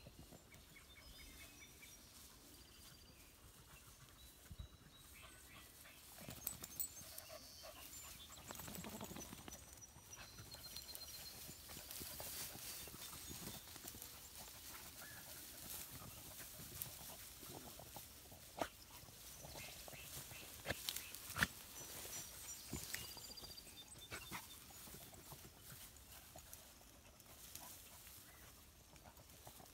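Faint, scattered barks from rabbit hounds working a scent in tall grass, with crackling and rustling of the vegetation. Short high chirps come and go through it.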